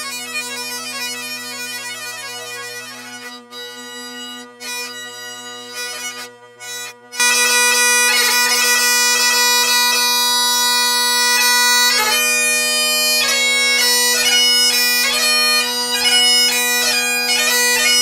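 Great Highland bagpipe: steady drones under the chanter. For the first few seconds the tuning is sped up, quieter and broken by short cuts. About seven seconds in, the full pipe comes in loud at normal speed, with fast chanter notes and gracenotes over the drones.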